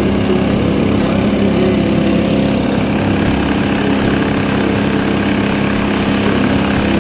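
Motorboat engine running steadily at a constant pitch, a loud, unbroken hum.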